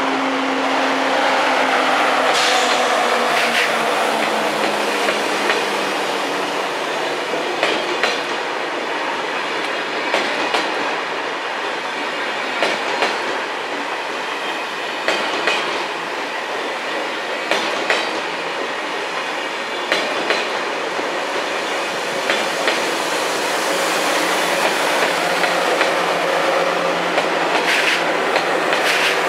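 TGV Réseau high-speed trainset passing slowly at close range, with a whine that falls in pitch during the first few seconds as the power car goes by. Then steady rolling noise, with wheel clicks over the rail joints about every two and a half seconds as each bogie passes.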